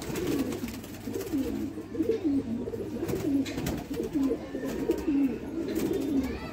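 Domestic pigeons cooing: many low coos from several birds overlap and repeat without a break.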